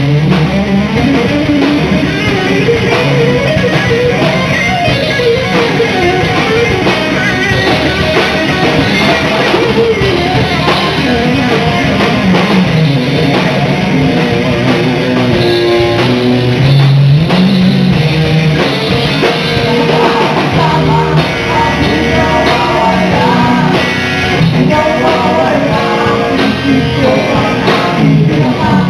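Live band playing a rock song, with guitar and drum kit.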